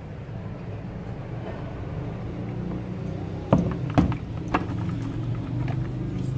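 A plastic basin tipped out over a small fish pond: three sharp knocks of the basin against the rim, about three and a half to four and a half seconds in, over a steady low hum.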